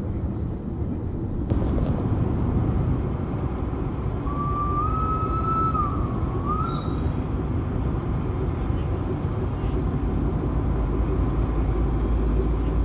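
Strong wind rumbling and buffeting on the microphone over a distant working railway. Around the middle, a faint whistle sounds for about two and a half seconds, wavering slightly in pitch.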